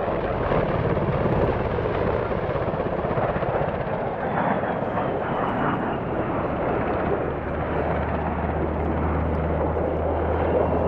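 A-10 Thunderbolt II's twin TF34 turbofans rushing and whining as the jet flies past, the whine falling slowly in pitch from about four seconds in. A steady low drone joins about two-thirds of the way through.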